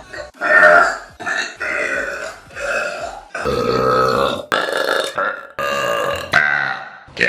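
A rapid string of about eight or nine loud burps by girls, one after another, each under a second long and cut off sharply where one clip gives way to the next.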